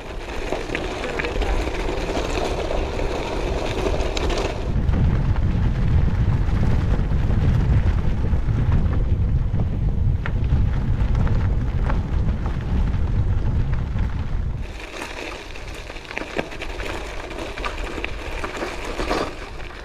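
Gravel bike tyres rolling and crunching over a rough heath trail, with small clicks from the ground. From about five seconds in to about fifteen, wind buffeting the action camera's microphone covers it with a heavy low rumble.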